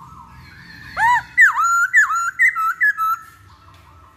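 Black-throated laughingthrush singing a quick run of loud, clear whistled notes that arch and swoop up and down. The phrase starts about a second in and lasts about two seconds.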